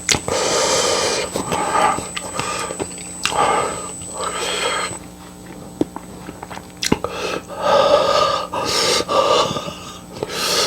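A man breathing hard in a string of short, noisy, wheezy breaths and sniffs while eating Samyang Buldak fire noodles, the reaction to the burn of very spicy food.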